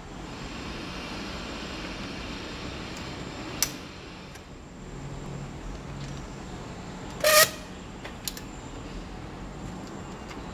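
Metal letterbox door with a combination lock: a sharp click as it is unlatched and opened, then a few seconds later a loud metallic clang with a brief ring as the door is shut, followed by a lighter click. A steady background hum lies under it.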